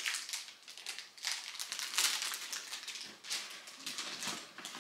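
Gift wrapping and packaging crinkling and rustling in irregular bursts as gifts are handled and unpacked.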